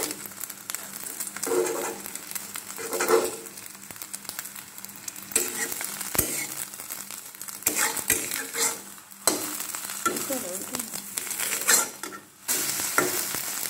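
Egg frying in ghee in a metal karai, sizzling steadily, with a metal spatula scraping and knocking against the pan several times as it is turned and pressed.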